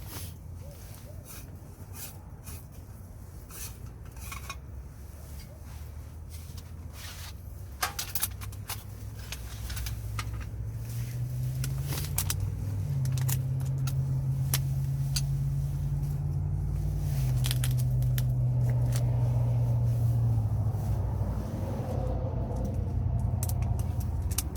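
Light clicks and scrapes of objects being handled, with a low, steady, engine-like hum that grows louder from about ten seconds in and shifts pitch slightly a couple of times.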